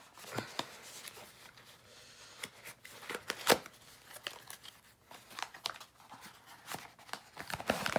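Cardboard boxes and packaging being handled and opened: scattered crinkling, rustling and small knocks, with one sharper knock about three and a half seconds in.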